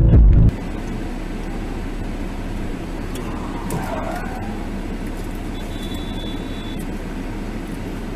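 Electronic music cuts off about half a second in, giving way to a dashcam's own recording of road traffic: a steady hum of engine and traffic noise from inside the car as cars pass through the intersection.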